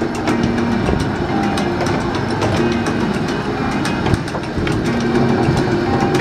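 Miniature train running along its track: a steady rumble and clatter from the wheels and open passenger cars, with many irregular clicks and knocks.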